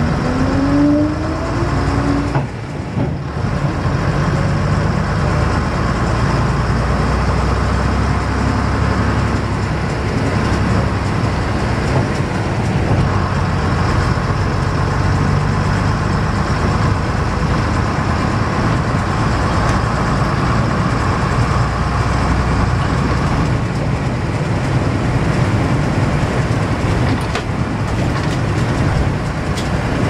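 AEC RT double-decker bus's 9.6-litre diesel engine pulling away and running along the road, heard from the upper deck. A rising whine in the first couple of seconds, a brief drop in the sound about three seconds in, then a steady engine drone with a faint higher whine that comes and goes.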